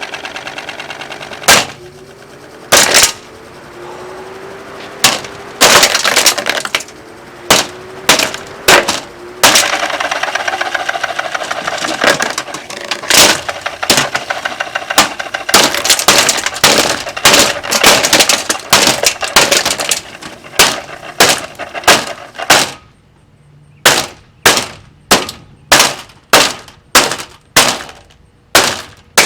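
Lasko box fan being smashed: repeated loud blows with plastic cracking over the running fan's rapid ticking and wavering motor hum. About two-thirds of the way in the fan's running noise stops, and the blows go on alone, about two a second.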